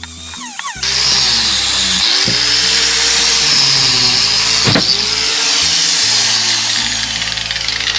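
Angle grinder with a wire cup brush running against steel, scrubbing rust off a bicycle part; it starts up about a second in and runs steadily with a high hiss.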